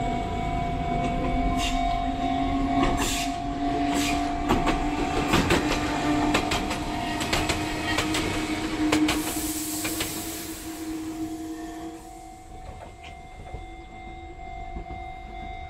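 Enoden electric train passing, its wheels clacking over rail joints with a slowly rising motor whine; the clacking dies away after about ten seconds. A steady high tone runs underneath.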